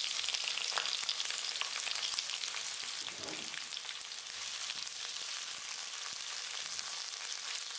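Sliced onions and curry leaves sizzling in hot oil in a stainless steel kadai, a steady frying hiss with small crackles, stirred with a metal spatula near the end.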